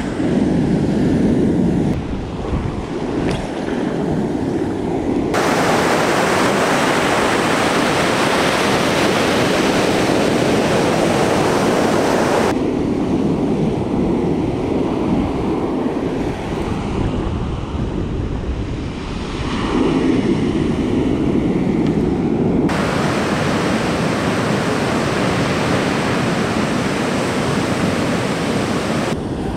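Ocean surf breaking and washing up the beach, with wind on the microphone. Its hiss brightens and dulls abruptly a few times.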